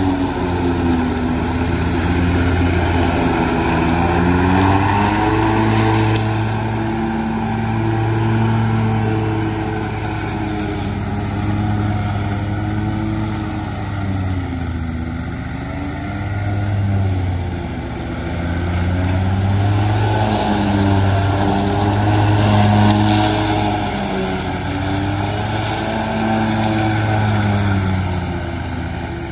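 Zero-turn riding mower's engine running under load while mowing through leaves, its pitch rising and falling every few seconds as the load changes.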